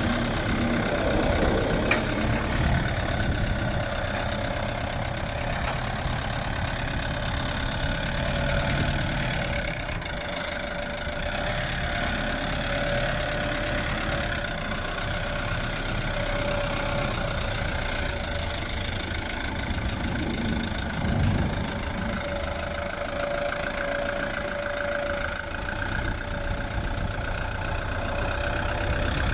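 A vehicle engine idling steadily, with an even low rumble and a steady hum.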